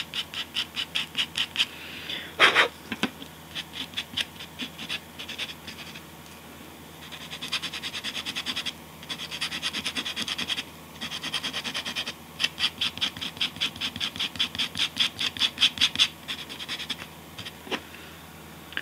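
Sandpaper rubbed in quick back-and-forth strokes over a hardened paper knife blade, several strokes a second, with a few short pauses.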